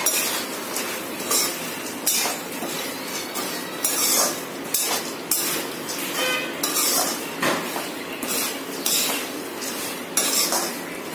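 Perforated metal ladle scraping and clinking against a metal kadai as boondi is stirred and roasted in oil, in repeated strokes about one and a half times a second.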